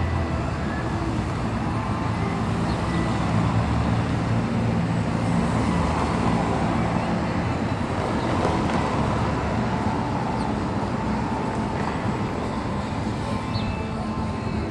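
Steady road traffic noise, a continuous wash of sound with a low hum underneath.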